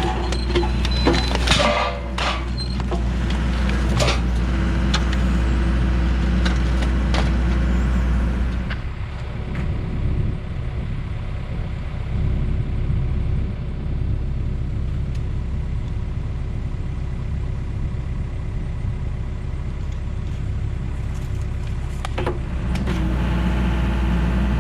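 Heavy equipment engine running steadily while working a hydraulic metal-cutting shear, with sharp metallic clicks and knocks in the first few seconds. The engine note changes about nine seconds in and changes back near the end.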